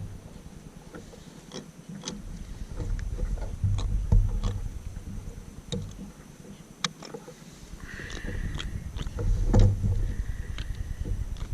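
Wind gusting against the microphone in low rumbling waves, with scattered sharp clicks and knocks of gear against a fishing kayak.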